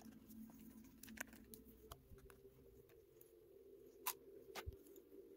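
Near silence with a few faint, scattered clicks and taps of a small screwdriver and parts being handled while the screws holding a laptop's internal battery are taken out.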